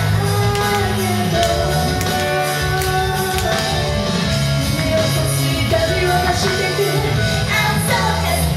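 A woman singing a J-pop song live into a handheld microphone over an instrumental backing with a steady beat.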